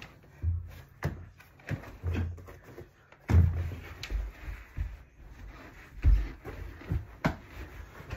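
Irregular dull thumps and scuffing as a person moves about on the floor and climbs onto a bed, roughly one bump a second, with the heaviest thumps about three seconds and six seconds in.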